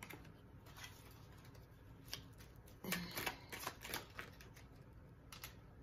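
Tarot cards being shuffled by hand: scattered soft clicks and flicks of card on card, thickest about three to four seconds in.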